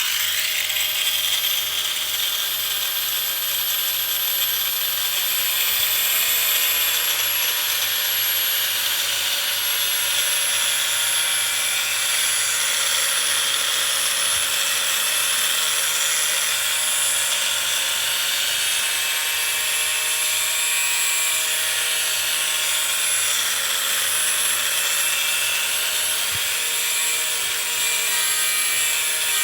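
Power tool running steadily, with a thin high-pitched whine that drifts slightly lower in the first few seconds.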